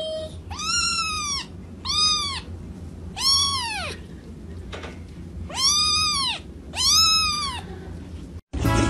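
Kitten meowing five times, each meow a short call that rises and then falls in pitch, over a low steady hum.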